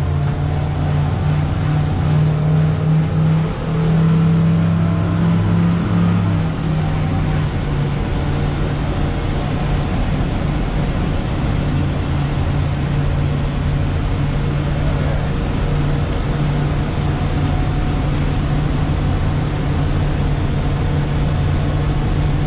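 Twin outboard engines running steadily as the boat cruises, heard from the enclosed helm as a low, even drone with hull, water and wind hiss; the engine note shifts slightly about six seconds in and then holds steady.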